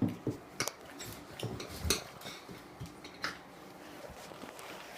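Tire spoons clinking and scraping against a motorcycle wheel rim as the tire bead is levered over it: a handful of sharp metallic clicks at uneven intervals.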